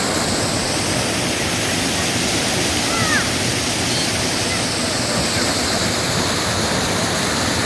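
Mountain stream water rushing steadily over a low weir, a constant dense roar of falling and churning water. A faint distant voice comes through briefly about three seconds in.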